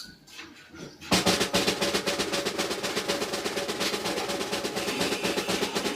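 Music: a fast, even drum roll comes in about a second in, over a held note.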